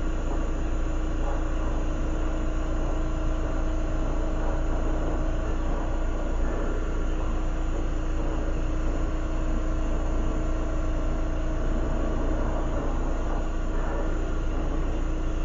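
Glassblowing torch flame running with a steady rushing hiss, over a constant low hum.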